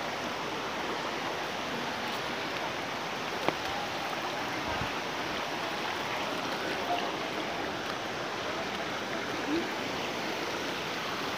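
River water rushing over rocks in a steady, even rush, with a single sharp click about three and a half seconds in.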